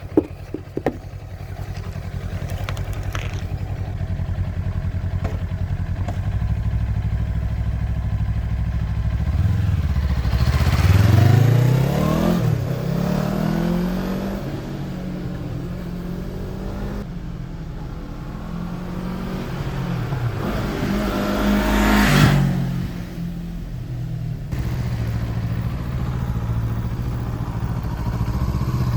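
Kawasaki motorcycle engine running, its pitch rising strongly twice as it is revved and accelerated, about ten seconds in and again about twenty-one seconds in, between stretches of steadier running.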